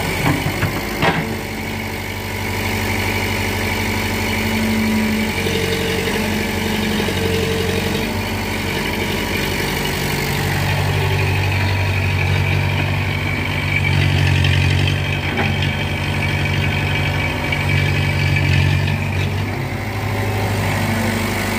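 Excavator's diesel engine running, its note stepping up and down as the hydraulics take load while the bucket digs and lifts sand. A sharp knock about a second in.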